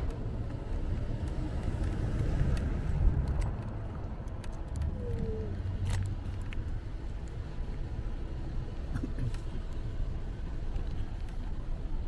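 Steady low rumble of road and wind noise from riding a scooter, with a few faint scattered ticks.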